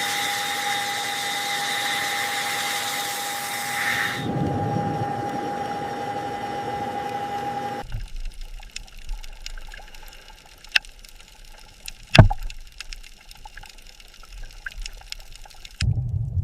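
Rushing, bubbling water noise with a steady tone through it, shifting to a lower rush after about four seconds. It then drops to a quieter stretch of scattered clicks with one sharp knock about twelve seconds in, and a low rumble comes in near the end.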